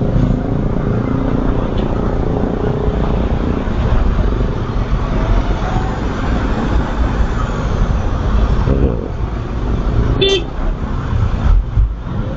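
Steady rush of road and traffic noise heard while riding a motorcycle, with one short horn toot about ten seconds in.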